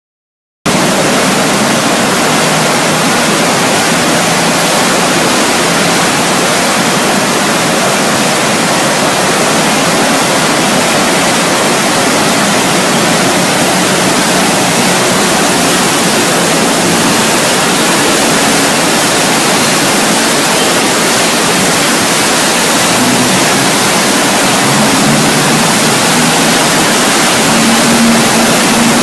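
Floodwater rushing and churning in a swollen river: a loud, steady rush of water that starts about half a second in.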